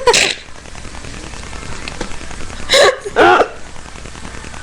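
A short, breathy gasp near the middle, followed at once by a brief high vocal squeak from a young woman, over a steady low hiss.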